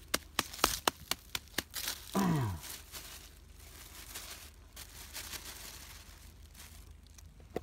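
Rapid sharp knocks, about five a second, stopping about two seconds in: garlic being pounded to rub on earthworm bait for fishing. Right after, a person's voice gives one short sound falling in pitch, and soft rustling follows.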